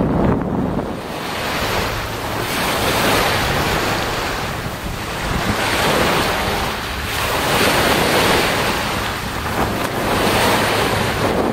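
Small waves breaking and washing up a pebble shore, swelling and fading about every two and a half seconds, with wind buffeting the microphone.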